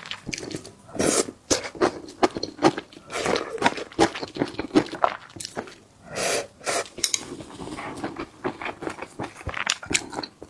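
Close-miked chewing and mouth sounds of a person eating a meal of rice and home-style dishes: a dense, irregular run of soft clicks and brief noisy bites.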